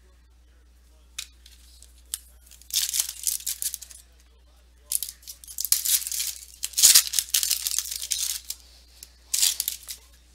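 Foil trading-card pack wrappers being torn open and crinkled, in several bursts of rustling tearing after a couple of light clicks.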